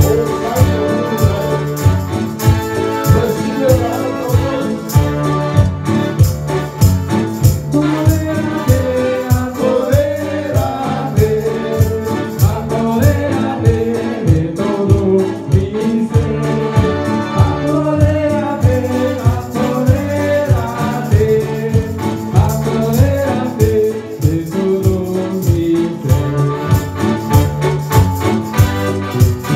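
Live gospel-style worship music: two electronic keyboards over a steady beat, with a man singing a gliding melody into a handheld microphone.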